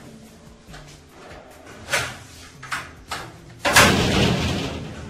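A couple of sharp knocks, then a louder door bang about three and a half seconds in that trails off over most of a second.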